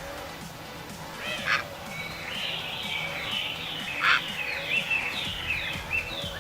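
Harsh squawking calls of a heron, two loud ones about a second and a half and four seconds in, over a chatter of many short, quick bird calls that thickens from about two seconds in.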